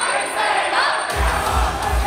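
Idol pop song with a crowd of fans shouting a chant over it; a steady kick-drum beat comes in about a second in.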